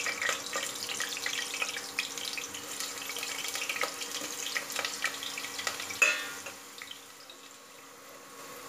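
Potato pieces sizzling and crackling as they are dropped into hot mustard oil in a metal pressure-cooker pan. About six seconds in comes a sharp metallic clink. After it the frying settles to a quieter, steady hiss.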